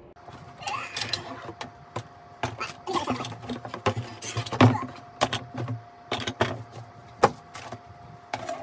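Unpacking of a hard plastic 1/10-scale Land Rover Defender body kit: plastic parts bags crinkling, cardboard box rustling and hard plastic parts knocking together, with irregular sharp knocks, the loudest about four and a half and seven seconds in.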